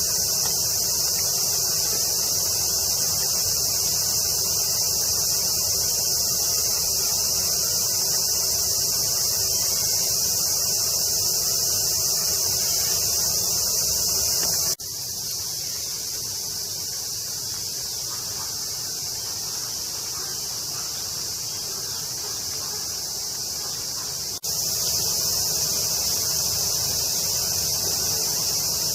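Summer cicada chorus: a dense, steady, high hiss of many insects calling together. It drops to a lower level abruptly about halfway through and comes back about ten seconds later.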